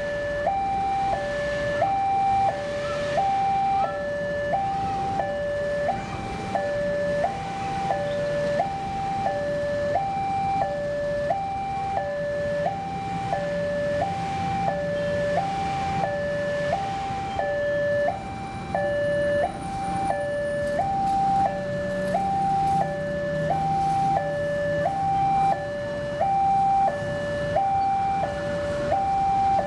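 Railway level-crossing warning alarm sounding a steady two-tone ding-dong, a higher and a lower tone alternating evenly with a pair a little over every second, signalling an approaching train. Faint engine rumble from road traffic passing underneath.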